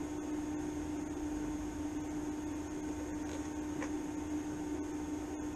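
Steady electrical hum with a faint hiss from the switched-on TIG welding set, holding one pitch with no change.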